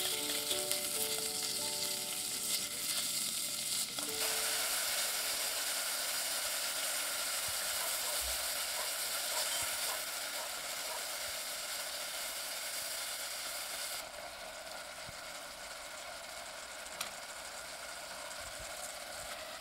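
Ground beef sizzling steadily in sesame oil in a hot rice pot as it is stir-fried with wooden chopsticks. The sizzle drops a little in level about fourteen seconds in.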